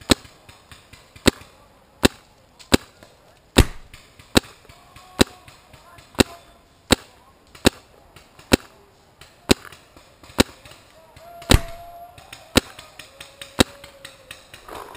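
Paintball marker firing single shots, a sharp pop about once a second, some sixteen in all, with quieter pops between. The loudest shots come about three and a half and eleven and a half seconds in.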